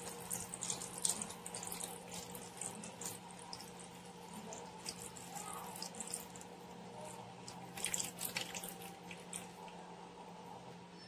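Beef shank broth poured in a thin stream into a serving bowl of meat and vegetables, trickling and splashing, with the splashing busiest in the first three seconds and again about eight seconds in.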